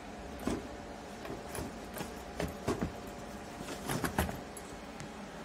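Tools knocking and clinking as a hand rummages through a packed Veto Pro Pac tool bag: irregular light knocks, with several close together about four seconds in. A steady hum runs underneath.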